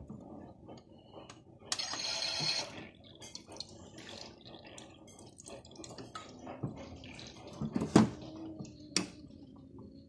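Toy Miele washing machine filling its drum with water for the first rinse: water trickling and dripping in, with a brief hiss about two seconds in and two sharp knocks near the end.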